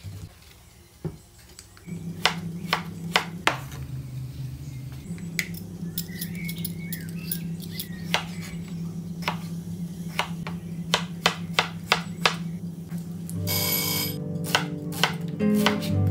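Kitchen knife chopping celery root, potato and onion on a cutting board: a run of sharp knife strikes, coming faster after about ten seconds, over background music.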